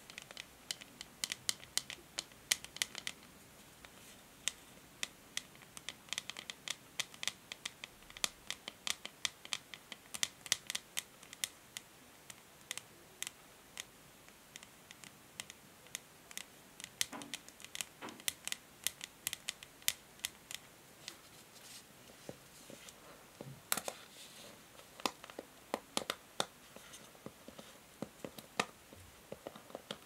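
Long fingernails tapping and scratching on the smooth grey back of a hair brush, in quick, irregular runs of light clicks with short pauses between them.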